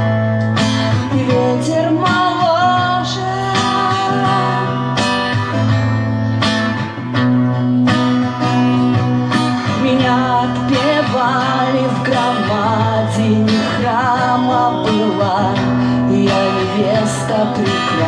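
Acoustic guitar strummed steadily as accompaniment to a woman singing a slow song, her voice wavering in a light vibrato.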